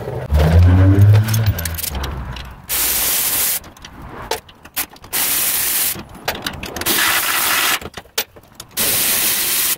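An air-powered tool running out the four 17 mm bolts that hold a wheel bearing hub: four bursts of steady hiss about a second long, with metal clicks of socket and bolts between them. A loud low sound comes in the first second or so, before the first burst.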